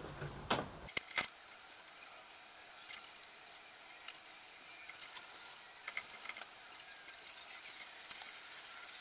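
Paint stripper working on the painted aluminium fuel tank: faint scattered crackling and ticking as the black paint bubbles and lifts. Two sharp clicks come about a second in.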